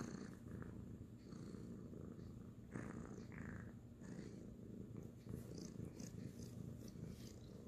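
Kitten purring steadily, close up. A couple of brief soft scuffs come about three seconds in.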